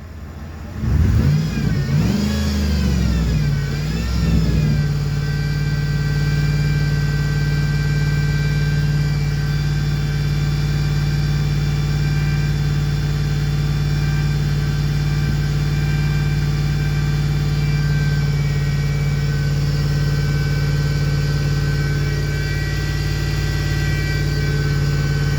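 The jump-starting vehicle's engine is revved up twice, then held at a steady raised speed. The throttle is held open to push charge through long jumper leads into a flat car battery.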